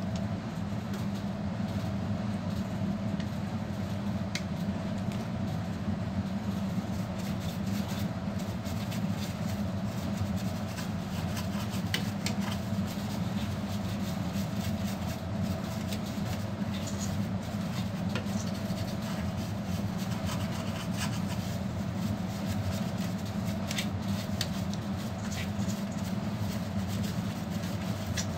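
A steady low mechanical hum, like a fan or blower running, with a few faint clicks and handling noises scattered through it.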